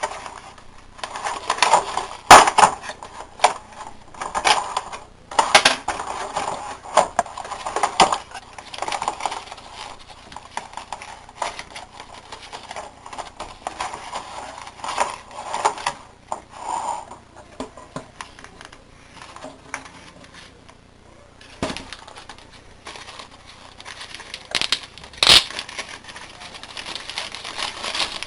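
Unboxing handling: packaging rustling and crinkling with irregular clicks and knocks, loudest about two seconds in and again near the end, quieter for a few seconds in between.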